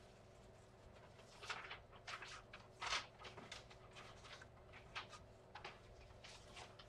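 Quiet room tone: a faint steady low hum with scattered soft rustles and light clicks, the clearest about three seconds in.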